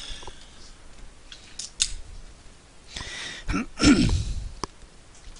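Pool shot: the cue tip strikes the cue ball and the balls click against each other on the table. About four seconds in there is a short, louder voice-like sound from the room.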